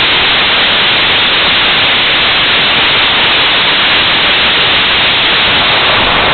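Skyroot Raman hypergolic upper-stage rocket engine (850 N vacuum thrust) firing on a test stand: a loud, steady rushing roar of the exhaust plume.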